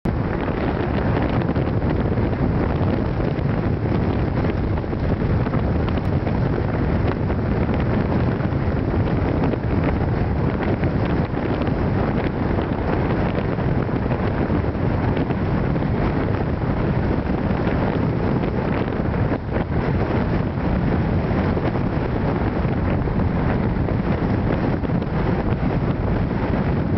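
Strong steady wind blowing across the camera's microphone, a continuous low rush of wind noise.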